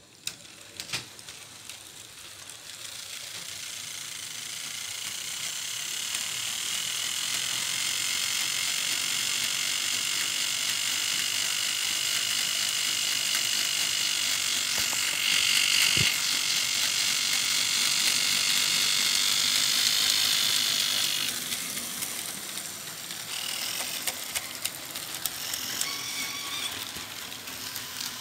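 HO scale model diesel locomotive running past on its track, its small electric motor and gears giving a steady high-pitched whine. The whine grows louder as it approaches, is loudest a little past halfway, with a sharp click there, and drops off about three quarters of the way through.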